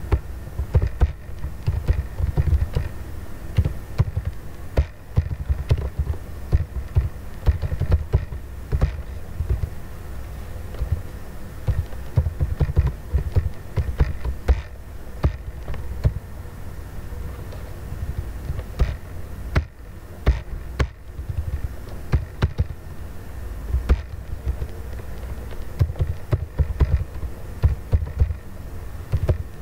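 Computer keyboard typing: irregular key clicks in quick runs with short pauses, over a steady low hum.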